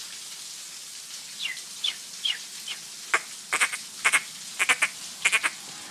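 A series of short, high-pitched squeaky chirps over a steady hiss of rain: a few single falling chirps at first, then louder paired calls in the second half.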